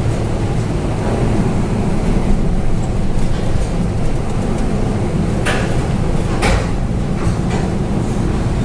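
Storm at sea around a tanker: a loud, steady, heavy rumble with two sharp crashes about five and a half and six and a half seconds in, and a few lighter ones after.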